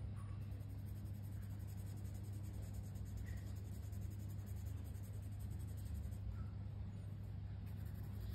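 Colored pencil rubbing on coloring-book paper as it shades in an area, over a steady low hum.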